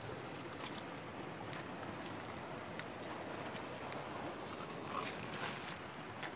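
Soft taps and scattered clicks as dead peroá (triggerfish) are handled and set down on bare rock beside a plastic bag, over a steady outdoor background hiss.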